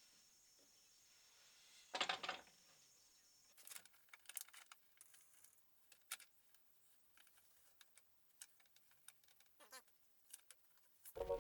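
Near silence broken by scattered faint clicks and taps, with one short, louder rustle about two seconds in.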